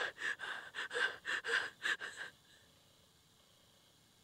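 A woman's quick, gasping breaths as she cries, about three or four a second, stopping a little over two seconds in.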